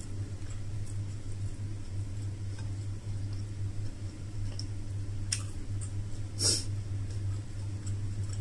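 Eating sounds: a person chewing with scattered small mouth clicks, and two sharper smacks about a second apart past the middle, over a steady low hum.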